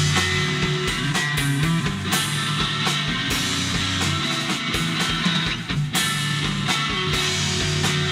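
Live rock band playing: electric guitar and bass guitar over a drum kit with cymbal crashes.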